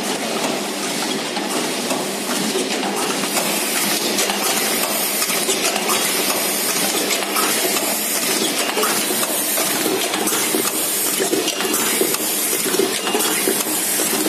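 Automatic plastic tube filling and sealing machine running: a steady mechanical clatter of many small metallic clinks and clicks over a continuous hiss.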